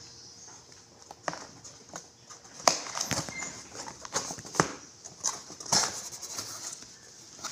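Cardboard pizza box being handled and its lid opened: irregular taps, knocks and scrapes of cardboard under the hands, the sharpest a little under three seconds in.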